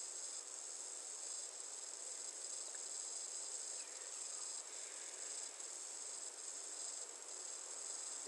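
Faint, steady high-pitched hiss: background room tone with no speech.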